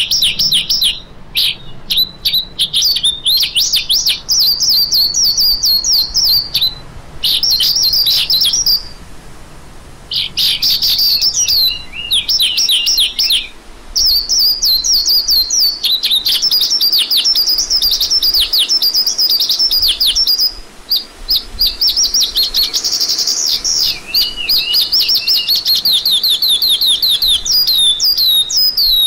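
A lark singing a long, rapid run of high chirps and trills, briefly pausing about nine seconds in.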